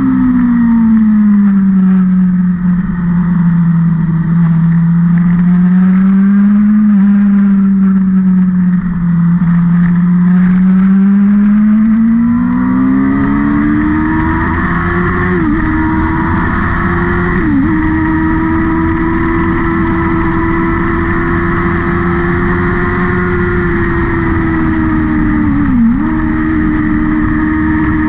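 A vehicle engine running continuously on a race track, its pitch sinking, then climbing to a steady higher note. It dips briefly three times in the second half, as at quick gear shifts, and drops away near the end.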